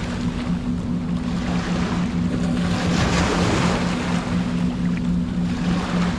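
Sea waves washing in, swelling and fading about every two seconds, over a steady low motor hum.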